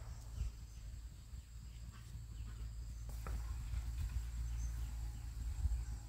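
Outdoor ambience: a faint, steady, high-pitched insect drone over a low rumble, with a few light knocks.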